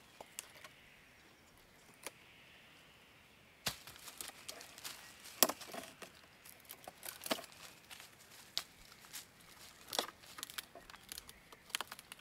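Dry twigs and small sticks being snapped and gathered by hand as stove fuel: a run of sharp cracks and crackles that starts about four seconds in, after a quiet opening.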